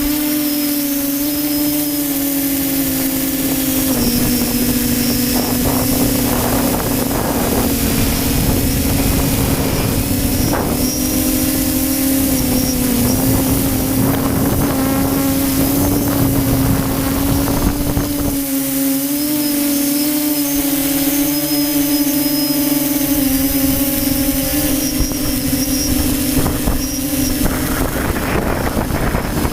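Radio-controlled model aircraft's motor and propeller running steadily in flight, its drone wavering a little in pitch with the throttle. Gusty wind rumbles on the microphone, easing off for a few seconds after the middle.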